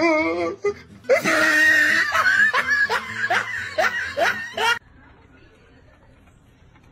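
A person laughing hard in quick repeated bursts, after a brief wavering, drawn-out vocal sound; the laughter stops abruptly about five seconds in and it goes quiet.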